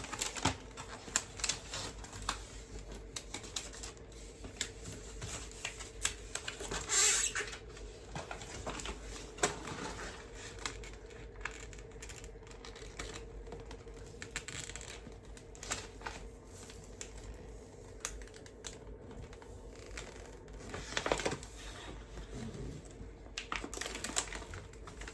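Scattered light clicks and taps with a few brief rustling swishes, from paper and self-laminating plastic sheets being handled and pressed down on a work table. A faint steady hum sits underneath.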